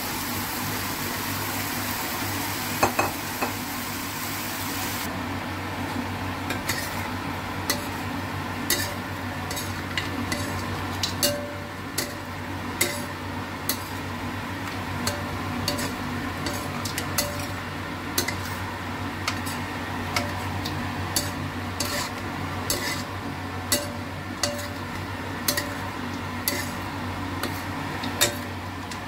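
Metal spatula stir-frying pork belly and preserved vegetable in a stainless steel wok, clinking and scraping against the pan about once a second. A sizzle is loudest for the first five seconds, over a steady low hum.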